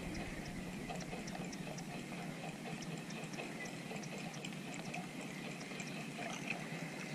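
Water lapping and trickling gently against the side of a small fishing boat, with scattered faint drips and ticks.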